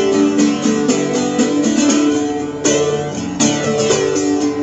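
A three-piece band playing an instrumental passage of a song, with guitar to the fore and no singing.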